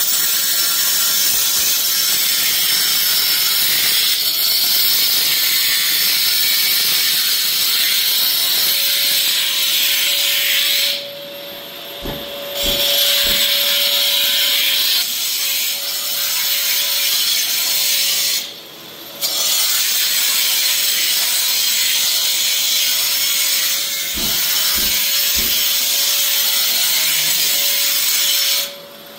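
4-inch cordless angle grinder cutting into concrete along a crack: a loud, steady, harsh grinding with a thin whine, dropping out briefly twice and stopping near the end.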